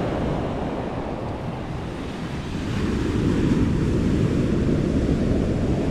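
Sea surf washing onto a sandy beach, with wind buffeting the microphone; the wash eases slightly and swells again about two and a half seconds in.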